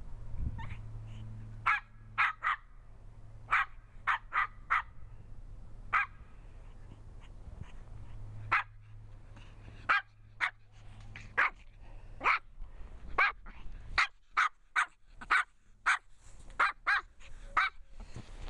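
Small spitz-type dog barking over and over in short, sharp, high barks, irregularly spaced and sometimes two or three in quick succession.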